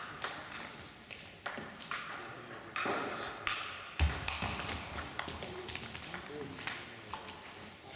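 Celluloid-type table tennis ball clicking off bats and the table during a rally, one sharp hit every second or so, with a short ring after each hit from the hall. A dull low thud about four seconds in is the loudest sound.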